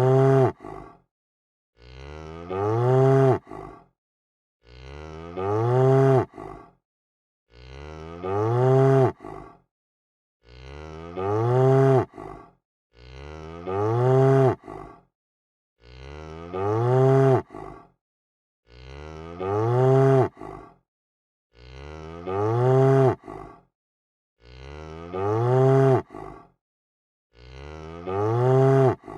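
A cow mooing: one long call, rising and swelling in pitch before dropping away. The same moo repeats every three seconds or so with silence between, a looped recording.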